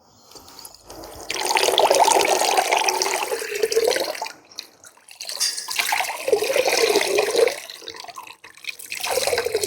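Water streaming and splashing back into a basin as a soaked, hand-knit alpaca sweater is lifted out and gently squeezed, in three bouts.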